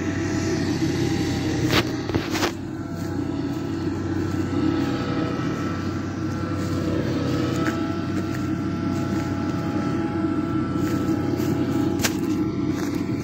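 Zetor 7341 tractor and the Mengele SF 5600 forage harvester it pulls, chopping oats for silage, heard from a distance as a steady drone with a faint whine over it. A couple of sharp clicks about two seconds in and again near the end.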